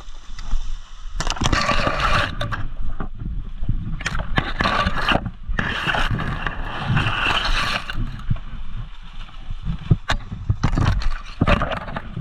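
Rustling and scraping close to the microphone, in several bursts of one to two seconds, over a constant low rumble, with a few short knocks.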